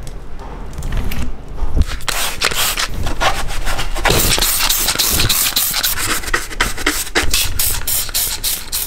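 Cloth and brush scrubbing degreaser over a scooter's plastic body parts. Quick, repeated rubbing strokes start about two seconds in.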